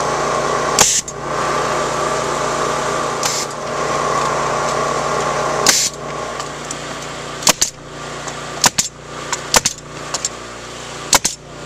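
Pneumatic coil roofing nailer driving nails into cedar shingles: three shots about two and a half seconds apart, each a sharp crack with a short hiss of air, then a quicker run of sharper clicks from about six seconds in. A motor hums steadily underneath.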